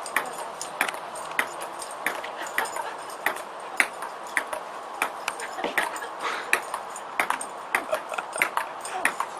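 Table tennis rally: the ball clicking sharply on the table and the paddles in a steady back-and-forth, about one hit every half second.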